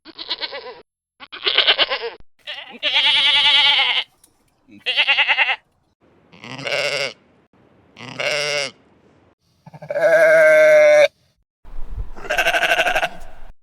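Bleating livestock: about nine separate bleats with short gaps between them, several with a quavering, wavering pitch.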